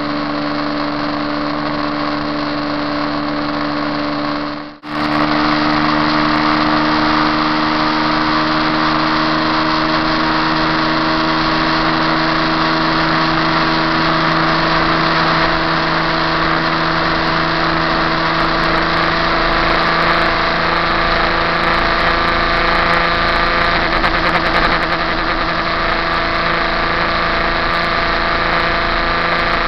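KTM RC390's single-cylinder engine running at high revs in top gear at about 160–180 km/h, its pitch creeping slowly up as the bike gains speed, over steady wind rush. The sound cuts out for a moment about five seconds in.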